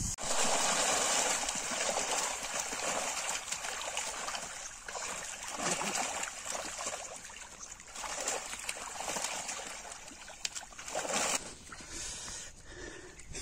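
Muddy water splashing and sloshing in irregular bursts.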